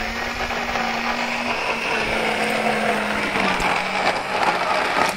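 Handheld immersion blender running steadily while blending pancake batter in a steel bowl, with the churning of the batter over the motor hum. The motor's pitch dips slightly about three and a half seconds in and rises again near the end.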